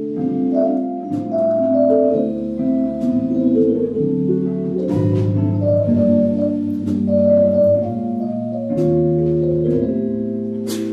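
Small jazz band playing a swing tune: sustained, organ-like chords from an electric stage keyboard over electric bass and archtop guitar, with a few sharp percussion hits, the loudest near the end.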